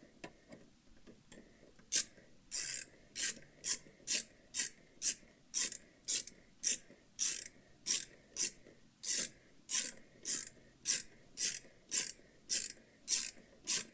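Socket ratchet wrench worked back and forth on a bolt, its pawl clicking in a steady run of short rasping strokes, about two a second, starting about two seconds in.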